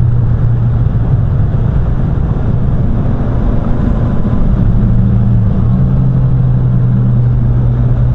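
Triumph Street Triple RS three-cylinder engine running at steady mid revs as the bike rolls off through a bend, under heavy wind rush on the helmet-mounted microphone. The engine note settles a little lower about five and a half seconds in.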